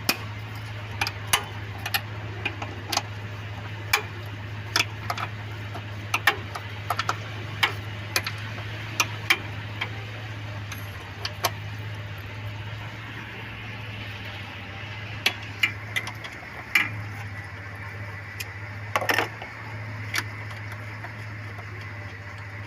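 Sharp metallic clicks and clinks of a 12mm socket on a short extension and handle working the nuts and bolts that hold down a throttle body, coming irregularly about once a second with a bunch of them near the end, over a steady low hum.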